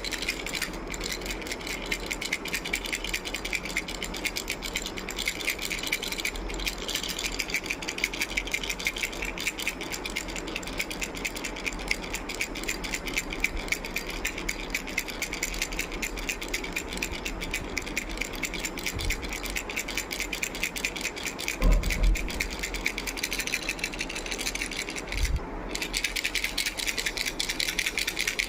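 Baby's toy rattle shaken continuously: a fast, dense, steady rattling. Dull thumps come twice about three-quarters of the way through and once more shortly after.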